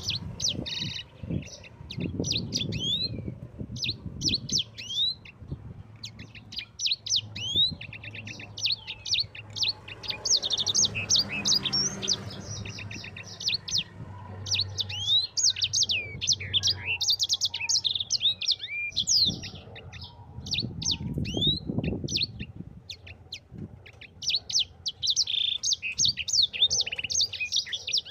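A sanger songbird singing a fast, rolling song: long runs of quick chirps and trills in phrases of a few seconds, with short pauses between them.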